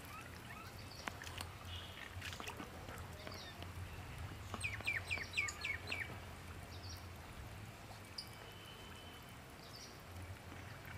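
Birds calling: a quick run of about six short falling notes around the middle, with scattered brief high chirps, over a low steady hum.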